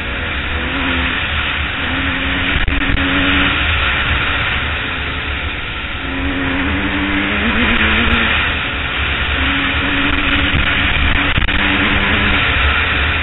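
Honda CR250 two-stroke single-cylinder dirt bike engine running under way, its pitch rising and falling several times with the throttle, over a steady rush of noise from riding at speed.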